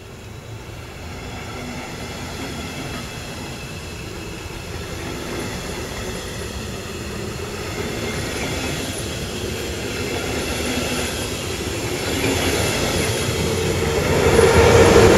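Double-deck regional passenger train passing close on electrified track, its wheels rolling on the rails with a noise that grows steadily louder. Near the end a steady whine comes up loudly as the electric locomotive pushing at the rear draws near.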